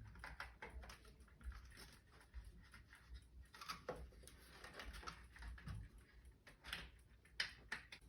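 Near silence with a few faint, scattered light clicks and taps, such as small parts being handled.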